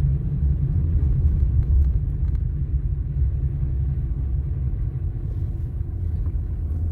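Steady low rumble of a car driving slowly over a snow-covered road, heard from inside the cabin.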